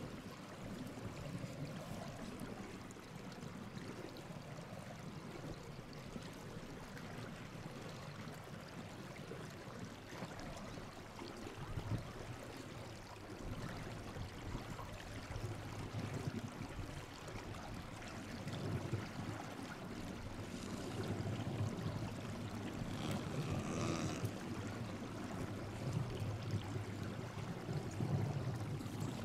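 A spotted seal gnawing and shoving its muzzle through snow, a rough crunching and scraping, with low grunts every few seconds as she strains.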